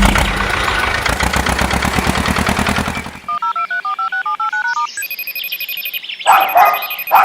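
Cartoon sound effects: a dense, fast rattling run, then about three seconds in a quick series of telephone keypad beeps stepping between a few pitches. Steady electronic phone tones follow, broken by two short louder bursts near the end.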